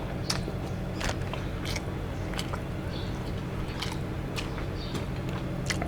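People eating: chewing and biting sounds with scattered small clicks, about one every second, over a steady low hum.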